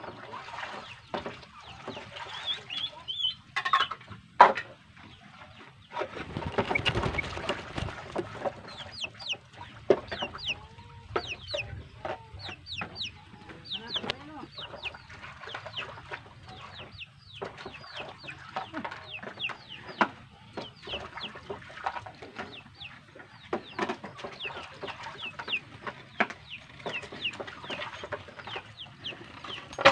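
Chickens clucking, with many short, high, downward-sliding peeps repeating through most of the stretch. About six seconds in there is a two-second rush of noise.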